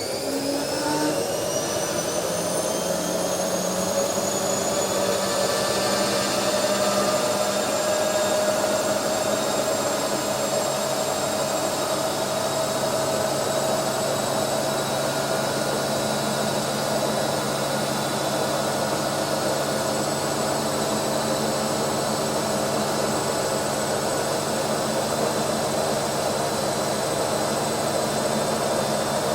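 Automatic washing machine running, its motor whine rising in pitch over the first few seconds and then holding steady over a continuous hum.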